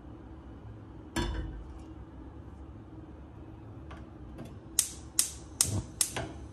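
A white kettle set down on a gas hob's grate about a second in, with a short ringing knock. Near the end, the hob's spark igniter clicks in a quick run, about six clicks, the last four loudest and evenly spaced, until the burner lights under the kettle.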